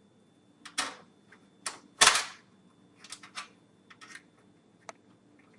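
Irregular metallic clicks and clacks of thumb screws and a metal drive cage being handled and fitted into a computer case, the loudest a sharp clack about two seconds in.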